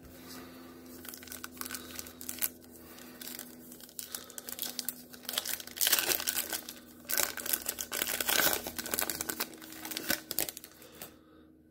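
Foil wrapper of a Prizm football card pack being torn open and crumpled by hand, crinkling and tearing, loudest about halfway through.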